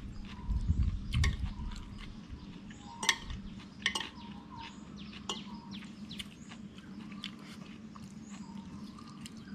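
A metal fork and spoon clinking and scraping on a plate while someone eats noodles, with a handful of sharp clicks spread through, over a low steady hum.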